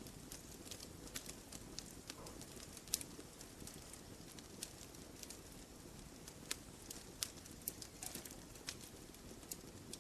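Campfire logs burning: irregular sharp snaps and pops over a soft, steady hiss, with the loudest snap about three seconds in.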